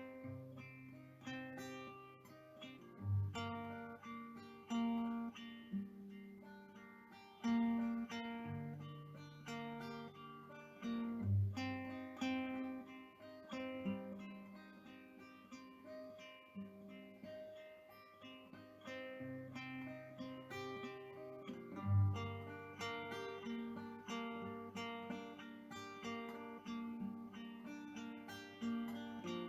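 Background music: acoustic guitar played with plucked notes and chords.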